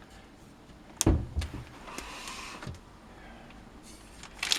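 Handling noises from the motherboard and its packaging: a knock about a second in, then a short sliding scrape.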